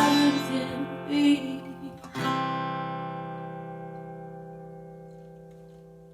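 Closing bars of a hymn, with voices and acoustic guitar accompaniment. About two seconds in a last chord is strummed and left to ring, fading away slowly.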